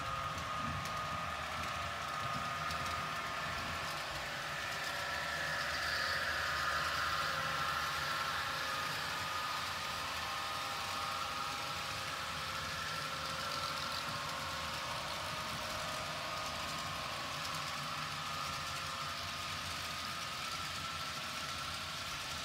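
Model freight train of covered hopper cars rolling along the layout track over a truss bridge: a steady whirring rumble of wheels on rail, a little louder about a quarter of the way in.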